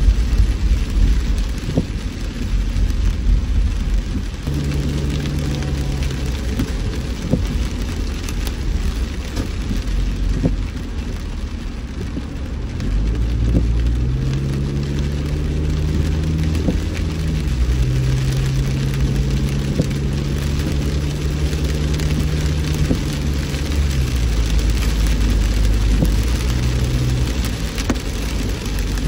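Heavy rain pattering on a road vehicle, with scattered sharp drops over a dense rumble of road noise. A car engine's hum rises in pitch about halfway through, holds steady, then fades a few seconds before the end.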